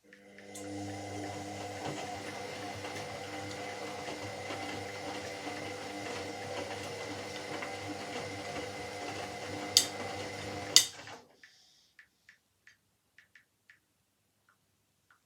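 Washing machine motor starting up and turning the drum, running steadily with a hum for about ten seconds, then stopping: one turn of the wash cycle. Two sharp clicks come just before it stops, and faint scattered ticks follow.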